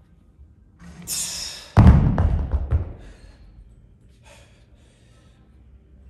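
A loud breathy exhale, then a sudden heavy thud followed by a few rattling clanks, like weights being dropped onto a gym floor at the end of a set.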